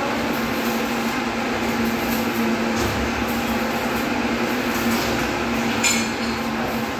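Manual chain hoists being worked, their metal chains clinking over a steady hum and background noise, with one sharp metallic clink near the end.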